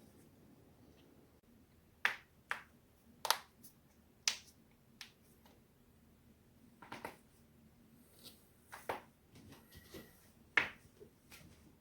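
Spinal joints cracking as they are twisted on purpose: about a dozen sharp pops at irregular intervals, some in quick pairs or small clusters.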